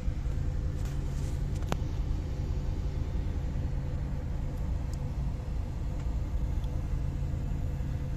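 Ship's engines and machinery running, a steady low rumble with a constant hum heard from inside the vessel.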